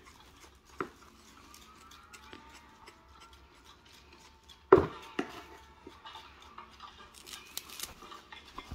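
Kitchen knife scraping and trimming young radish (yeolmu) stems, with small clicks and leafy rustling as the greens are handled, and one sharp knock near the middle.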